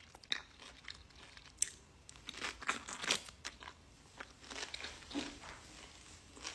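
A person biting and chewing a piece of fruit: irregular small clicks and mouth noises, busiest about halfway through.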